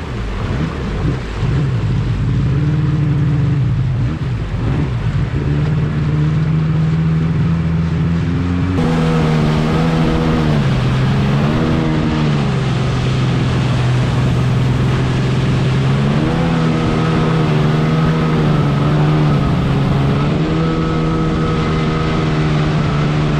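Two-stroke jet ski engine running, revving up and dropping back several times. About nine seconds in the sound changes abruptly to a clearer, steadier note.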